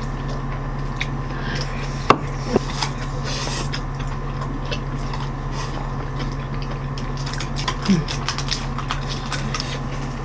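Close-miked eating sounds: chewing and slurping spicy rice cakes and noodles, with many small chopstick-on-dish clicks and one sharper clink about two seconds in. A steady low hum runs underneath.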